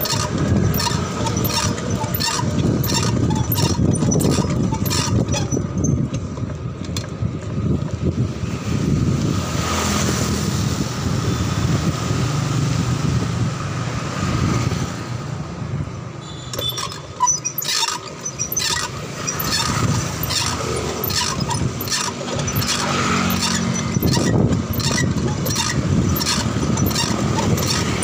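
Bicycle ride heard from a handlebar-mounted camera: steady wind and road rumble with frequent sharp rattles and clicks from the wire front basket and frame over bumps. The rattling eases off for several seconds in the middle and then picks up again.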